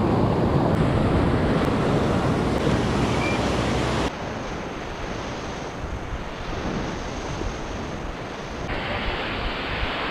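Ocean surf breaking and washing, with wind buffeting the microphone. About four seconds in it drops abruptly to quieter surf and wind, and it shifts again near the end.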